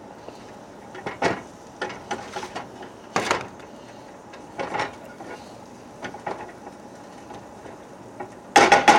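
A utensil knocking and scraping against a skillet every second or two as butter is spread around the pan, with a louder clatter near the end.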